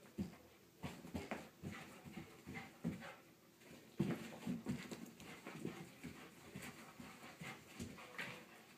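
A coonhound–Labrador mix dog panting and scuffling as it chases a laser dot, with quick irregular thuds of paws landing on carpet.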